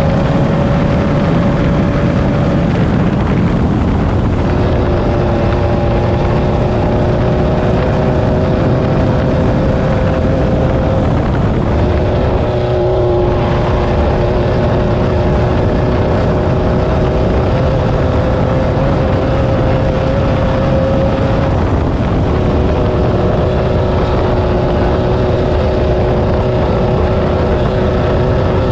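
Air-cooled Volkswagen engine of a Class 9 off-road race buggy running hard at sustained high revs over a constant rough rumble. Its pitch shifts a few times, with a brief dip about two-thirds of the way through.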